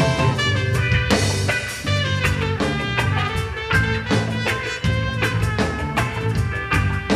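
Live band playing an instrumental passage with a trumpet solo over drums and bass.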